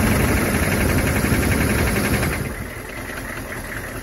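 Humvee V8 diesel engine running with a fast, even knock, which the mechanic takes for a bad belt tensioner pulley letting the serpentine belt move around. The sound gets quieter about two and a half seconds in.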